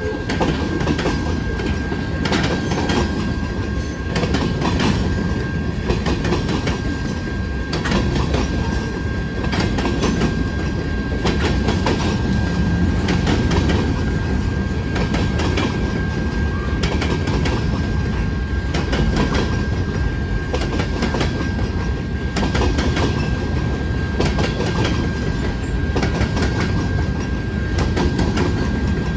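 Freight cars of a passing train rolling over the crossing: a steady heavy rumble with the irregular clatter of wheels over rail joints, and a thin steady high tone over it.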